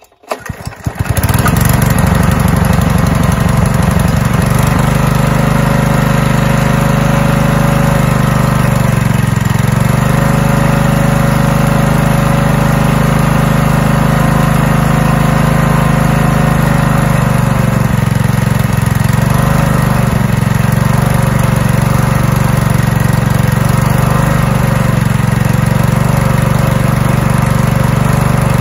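Honda GX120 single-cylinder four-stroke engine on a generator, pull-started with the choke on: it catches at once, stumbles for about a second, then runs steadily, with brief dips in speed about nine seconds in and again near twenty seconds. It is running again after a carburettor clean.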